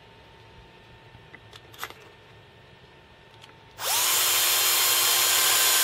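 Cordless drill starting up about four seconds in and running steadily at full speed, with a high whine. It is used to drill out the too-tight hole in a 3D-printed plastic knife handle. Before it starts there are only a few faint clicks.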